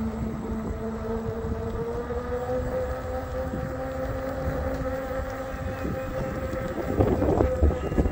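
Veteran Sherman electric unicycle's hub motor whining steadily at cruising speed, its pitch rising slightly as it speeds up, over wind rumbling on the microphone, with a louder rush of noise near the end.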